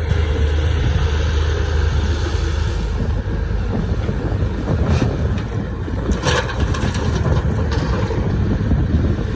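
Caterpillar 320C hydraulic excavator's diesel engine running under load while digging hard rock. A few sharp knocks, about five and six seconds in, come from the bucket striking the rock.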